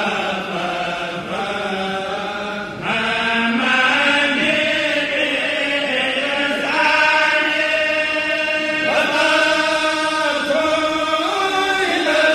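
Group of voices chanting an Arabic khassida (Sufi devotional poem) in unison, with long held, melismatic notes sliding slowly between pitches; the chant swells louder as a new line begins about three seconds in.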